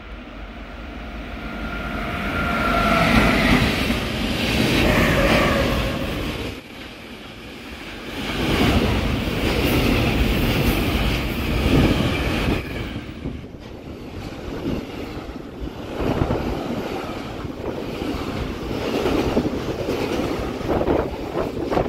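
A container freight train passing close by: the noise swells over the first few seconds as the locomotive comes through, then the steady rumble of the container wagons runs on, with repeated clattering knocks of wheels over the rails.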